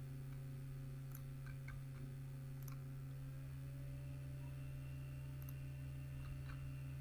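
Steady low electrical hum with a few faint computer mouse clicks scattered through it.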